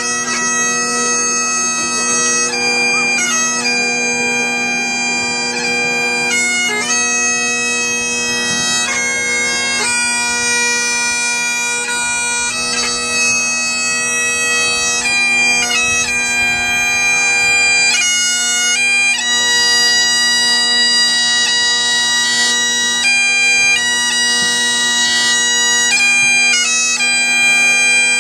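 Bagpipes playing a slow tune over a steady drone that holds unbroken beneath the changing melody notes.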